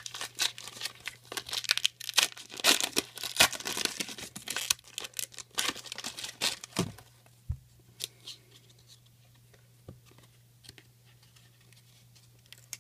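Foil wrapper of a trading-card pack torn open and crinkled by hand: a dense run of crackles for about the first seven seconds. After that come sparser soft clicks and rustles as the cards are handled.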